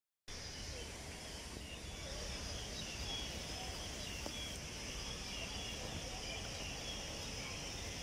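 Faint steady outdoor background noise with scattered faint high chirps of distant small birds.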